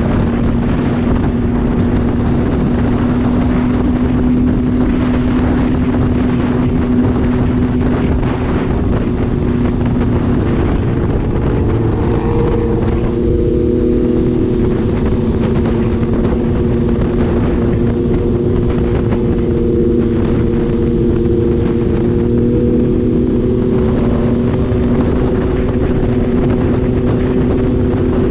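MV Agusta Dragster RR's three-cylinder engine running at a steady cruise, with wind rushing over the microphone. The engine note shifts partway through.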